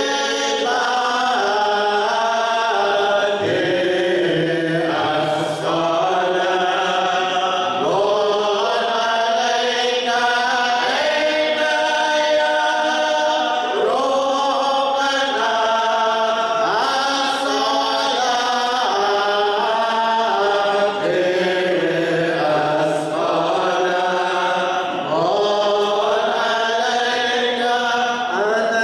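A group of men chanting dhikr together in long melodic phrases, without instruments.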